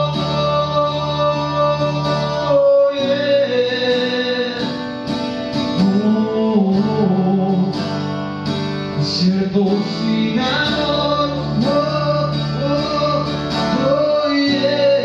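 A man sings live to his own acoustic guitar, strumming chords, with some long held vocal notes.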